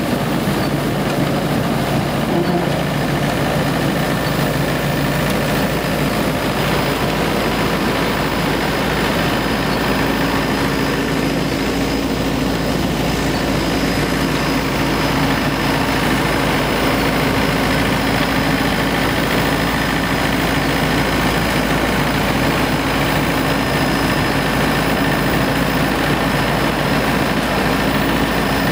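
Self-propelled windrower's engine running steadily, a continuous mechanical drone with a constant hum.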